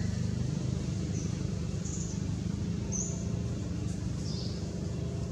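Short high-pitched bird chirps, about four of them spread over a few seconds, over a steady low background rumble.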